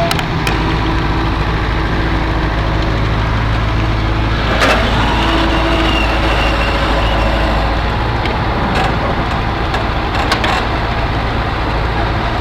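A heavy vehicle's engine running steadily, with a few short knocks about five seconds in and again near ten seconds.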